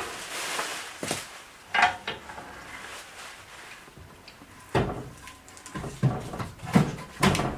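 A handful of separate knocks and clatters, about five in all, from a fire block and wood being handled and set down to start a fire.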